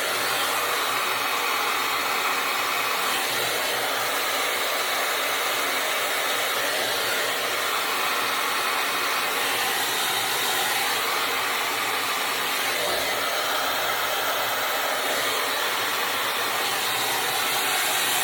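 Dyson hair dryer with its diffuser attachment running steadily, a kind of loud, even rush of blown air whose sound shifts a little every few seconds.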